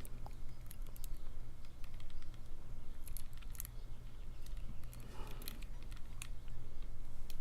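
Faint, scattered metallic clicks and scraping of a thin lock pick working the pins of a cheap gun lock.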